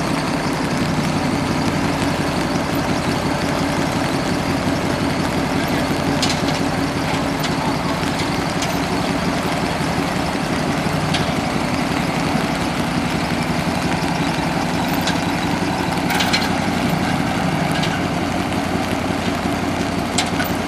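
A motor vehicle's engine running steadily, with a few faint clicks.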